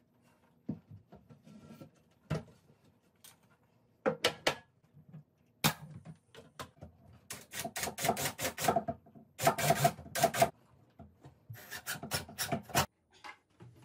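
A few scattered knocks as a shelf board is set in place, then a pneumatic nail gun firing rapid runs of shots, several a second, nailing the shelf onto its wall cleats.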